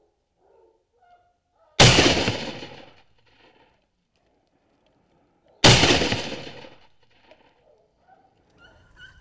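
Two shotgun shots about four seconds apart, each a sharp crack that trails off over about a second.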